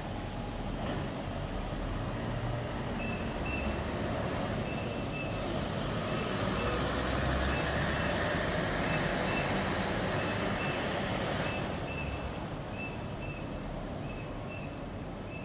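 City bus engines running at a bus terminal, loudest about halfway through as a bus passes close. From about three seconds in, a bus's reversing alarm sounds short high beeps in pairs, repeating about every second and a half, as the bus backs out of its bay.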